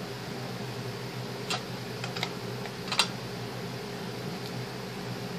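A few light clicks and taps from small craft items and a tin box being handled, the loudest about three seconds in, over a steady low background hum.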